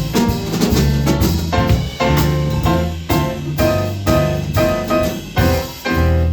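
Small jazz group playing a ballad, with piano and drum kit.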